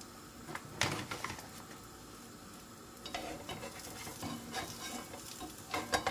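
Stuffed puff-pastry parcel sizzling gently in butter and oil in a nonstick frying pan over turned-down heat. There is a knock about a second in. From about halfway, a slotted spatula scrapes and taps against the pan, ending in a sharper knock.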